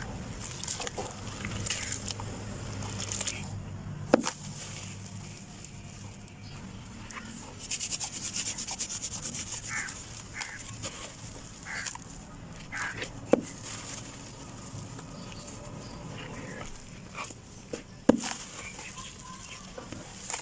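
Clumps of dried sand-cement being crumbled, an uneven crunching and gritty rustling with three sharp cracks, about four, thirteen and eighteen seconds in.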